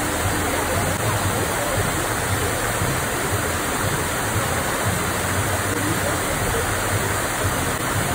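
Artificial pool waterfall pouring off a rock ledge into a swimming pool: a steady, unbroken rush of falling water.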